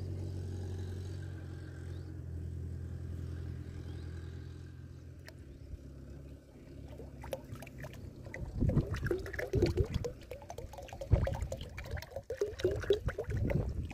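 Liquid glugging unevenly from the neck of a 1-litre plastic bottle as it is tipped and poured into a drum of fertiliser solution, loudest over the last five seconds. Before that, a steady low hum fades out about six seconds in.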